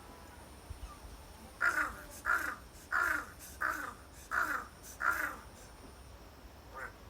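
Large-billed crow giving a run of six hoarse "aha, ahau" calls, roughly one every 0.7 seconds, then a faint short call near the end.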